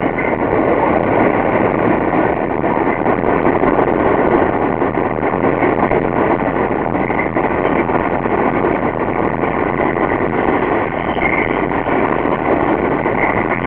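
R160A subway train running past, a loud steady noise with a couple of constant high tones over it.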